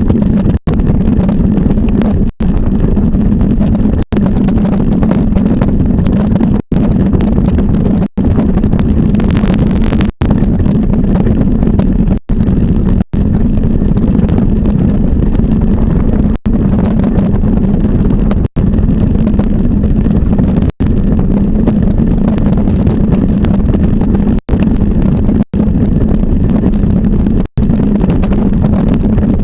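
Loud, steady low rumble of an iceboat's runners sliding over ice, cut by very brief dropouts every second or two.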